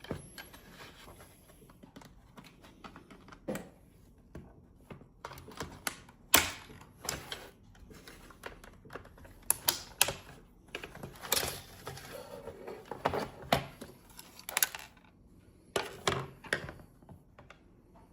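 Irregular clicks and clacks of hard plastic parts and tools as a GE Simon XT alarm panel is taken apart by hand, with several louder knocks in the second half.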